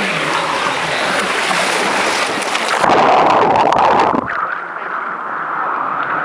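Water rushing down a body water slide with the rider sliding in it. About three seconds in there is a louder surge of water lasting about a second, which cuts off suddenly into a quieter, steadier water sound.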